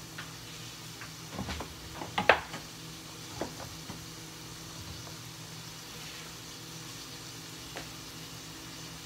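Food sizzling in a frying pan on the stovetop over a steady low hum. A quick run of clinks and knocks from kitchen handling comes between about one and a half and two and a half seconds in, the loudest near the end of that run, with a few lighter ones shortly after.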